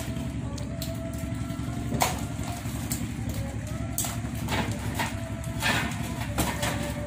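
Live mud crabs being handled in plastic crates and set on a weighing scale, their shells knocking and clattering, a sharp knock every second or so, over a steady low machine hum.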